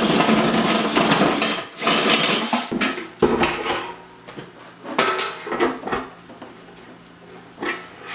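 Metal scraping in quick strokes as a hole in a metal ammo can is widened for the feeder motor's mounting bolts. A few short metallic knocks and clanks follow.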